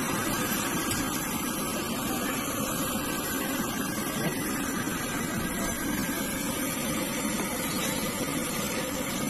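A steady, even rushing noise with no distinct knocks or tones.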